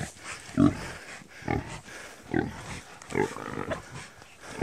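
Pig grunting and squealing in short, loud calls, about one a second.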